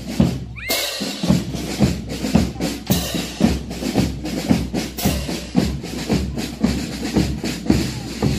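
Music with a steady drum beat of about two strikes a second.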